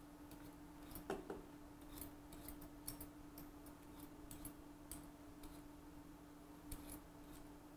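Vegetable peeler (econome) scraping the skin off a raw potato: faint, short, irregular strokes about two a second, with a pause shortly after the midpoint. A low steady hum runs underneath.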